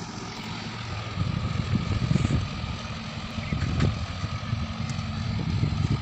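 Diesel engine of a truck-mounted mobile crane running while it holds a suspended load. It grows louder and more uneven about a second in.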